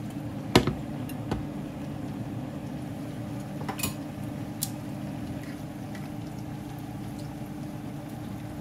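Chicken taquitos frying in hot oil: a steady bubbling sizzle. A sharp click comes about half a second in, with a few lighter clicks later.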